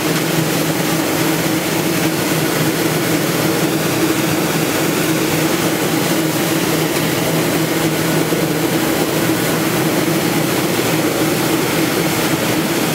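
Stainless rotary drum ginger washing and peeling machine running steadily: a constant motor hum in two low tones under the even hiss of water spraying and pouring onto the stainless steel tray.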